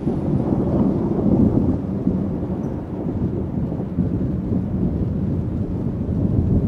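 Thunder rumbling continuously in a storm, low and steady without sharp cracks.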